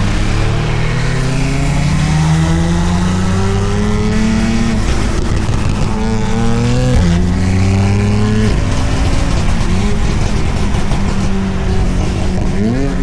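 BMW M4's twin-turbo inline-six accelerating hard, its note climbing in pitch and dropping back suddenly about three times as it shifts up. Short exhaust crackles and pops run through it.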